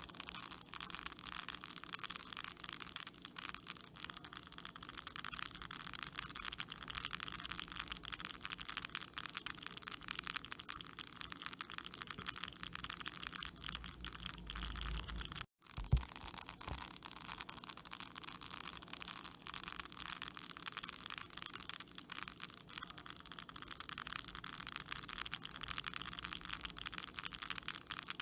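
Termites working in wood: a dense, continuous fine crackling made of many tiny clicks. About halfway through, the sound cuts out for an instant after a low rumble, then a single sharp click.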